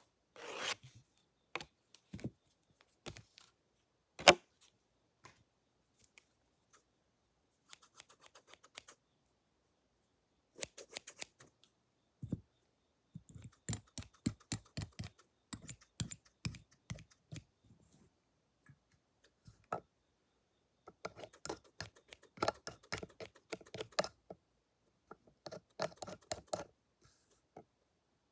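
Close-up clicking and tapping of pretend barber tools handled against the microphone, in bursts of quick clicks several a second, with one sharp knock about four seconds in.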